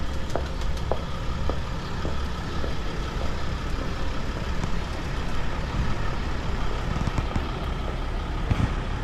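Road traffic: motor vehicles, trucks among them, running past with a steady low rumble, and a few sharp clicks in the first second.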